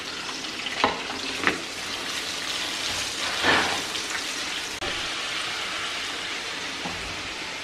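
Sliced onions frying in oil in an iron kadai, a steady sizzle, as a spatula stirs them and scrapes the pan three times, the longest scrape about three and a half seconds in.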